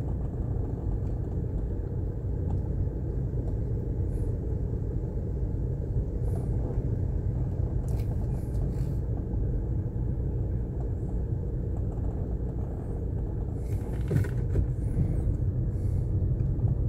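Steady low rumble of a car's engine and tyres heard from inside the cabin as it drives slowly, with a brief faint scratchy noise about two-thirds of the way in.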